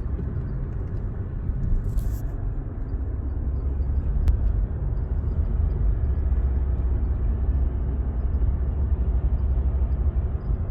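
BMW M235i on the move, heard from inside the cabin: a steady low engine and road rumble.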